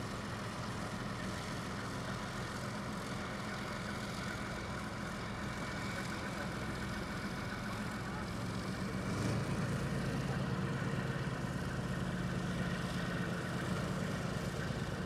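Leopard 2A7V tank's V12 diesel engine running as the tank drives slowly down off a low-loader trailer and across concrete: a steady low hum that gets louder about nine seconds in.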